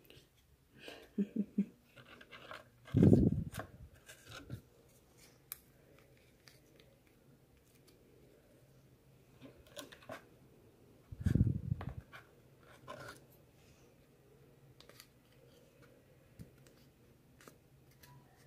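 Cardboard pieces being handled and pressed together on a desk: scattered rustles and clicks, with two louder dull knocks about three seconds in and again around eleven seconds.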